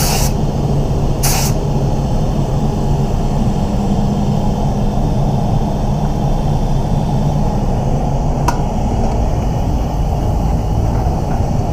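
Steady low hum of spray booth ventilation running, with a spray gun hissing in two short bursts near the start as clear coat goes on.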